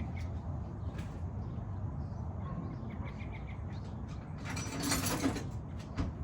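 Hand tools being handled during sway bar link work: light metallic clicks and short runs of small ratchet-like ticks. There is a brief scuffing burst about five seconds in and a single sharp knock near the end.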